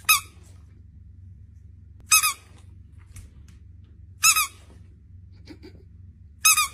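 Squeaky dog toy squeezed four times, about two seconds apart, each a short high-pitched squeak.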